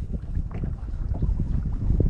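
Gusty wind buffeting the microphone, with small waves slapping against the boat's hull.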